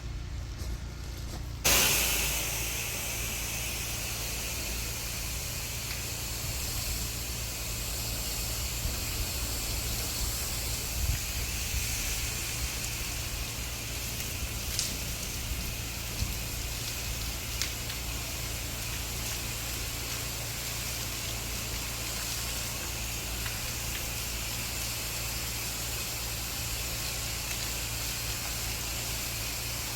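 Pressure washer spraying a steady water jet, starting about two seconds in, to rinse the soap blend off the house. A low, steady machine hum runs underneath.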